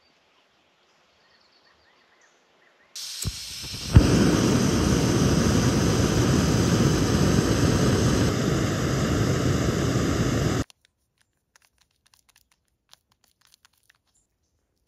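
Backpacking gas-canister stove: a soft gas hiss and a click, then the burner lights with a pop about four seconds in and burns with a loud, steady rushing hiss. The sound cuts off abruptly after about seven seconds.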